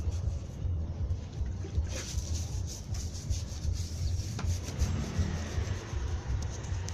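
Volkswagen gear shift lever rubbing and knocking as it moves with play in its worn bushing, over a steady low rumble.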